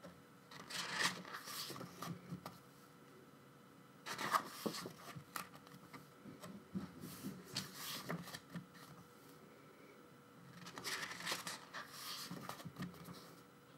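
Paper rustling and sliding as the pages of a K-pop album's photo book are turned by hand, in four or five separate stretches of a second or two each.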